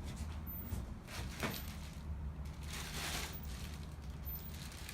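Packaging and parts being handled during an unboxing: two short rustling scrapes, about a second and a half in and again about three seconds in, over a low steady rumble.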